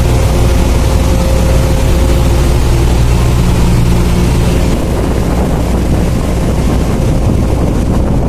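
Steady low drone of a car ferry's engines heard from the open deck. About halfway through, the hum fades and a rushing of wind and water takes over.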